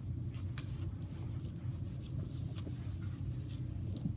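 Faint, light scratching and ticking of hands handling the camera or a photo print, over a steady low hum.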